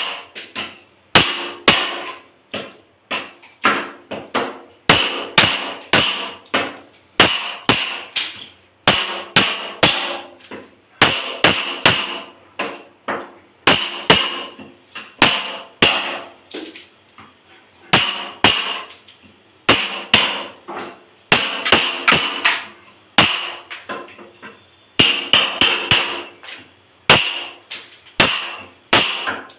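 Hammer blows breaking up tiles to get at a leaking pipe, struck in quick runs of several blows with short pauses between, each blow with a short ringing tail.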